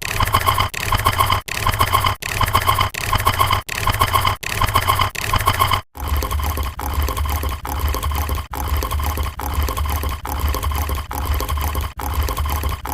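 Edited sound-effect clips played one after another, each lasting under a second with a brief silent gap between them. About six seconds in, the clip changes to a different effect with a deeper rumble, which repeats at the same pace.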